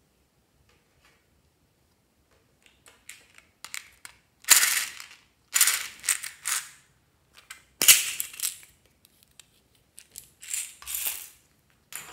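Hard plastic ball-shaped container being handled and pulled open: a series of sharp plastic clicks, clacks and rattles, the loudest about four and a half and eight seconds in.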